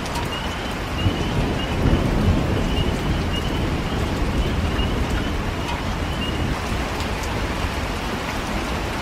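Thunderstorm: steady rain falling, with a low rumble of thunder swelling about a second in and easing off a couple of seconds later. A faint high chirp repeats about twice a second over the rain.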